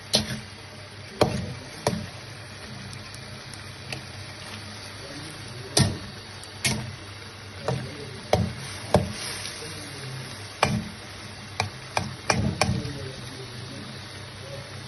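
Steel spatula knocking and scraping against a steel karahi as mutton mince is stirred, about a dozen irregular clanks, over the steady sizzle of the mince cooking in ghee.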